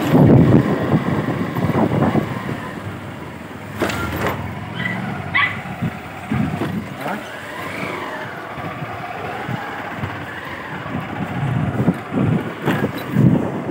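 Motor two-wheeler riding along a street, heard from the rider's seat: uneven engine and wind rumble, loudest at the start and easing off midway, with a few short high chirps about five seconds in.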